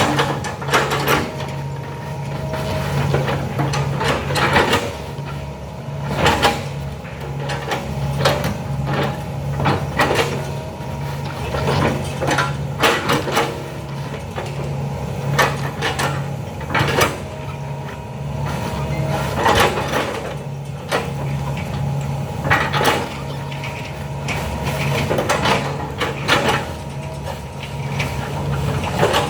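Hydraulic excavator working: its diesel engine runs steadily, with frequent irregular clanks and knocks from the bucket and arm as it digs.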